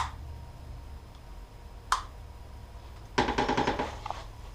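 Two sharp clicks about two seconds apart over a low steady hum, then a short buzzing rattle a little after three seconds in.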